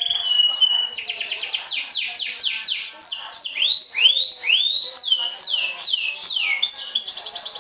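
Canary singing: a short held whistle, then a rapid trill about a second in, a run of quick falling sweeps and arched notes, and another rapid trill near the end.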